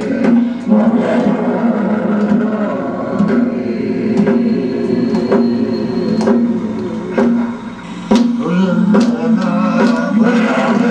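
A group of men and women singing together in unison, holding long notes, with short sharp strikes keeping a beat roughly every half to one second. The singing dips briefly just before the end.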